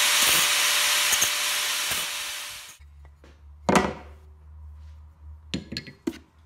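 Angle grinder with a cutoff wheel cutting through a metal rod clamped in a bench vise, a steady grinding noise that stops abruptly a little under three seconds in. About a second later there is one sharp knock on a wooden bench, the loudest sound, followed by a few lighter knocks near the end as pieces are set down.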